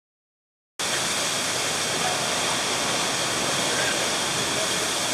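A short gap of dead silence, then the steady, even rushing of Niagara's Horseshoe Falls, heard from a tunnel portal directly behind the curtain of falling water.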